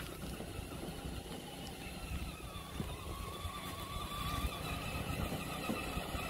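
Child's battery-powered ride-on toy car whining faintly as its electric motors drive it across grass, the whine wavering in pitch and growing clearer about halfway through. Wind rumbles on the microphone throughout.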